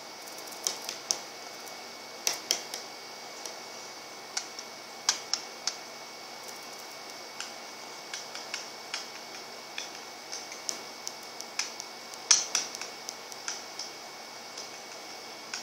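Irregular light clicks and taps on a hard wooden tabletop, some in quick clusters, from a budgerigar's claws as it walks about on it.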